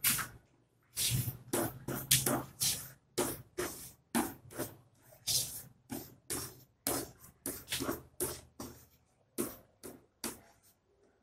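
Chalk writing on a chalkboard: a quick string of short scratching and tapping strokes, about two a second, as an equation is written out.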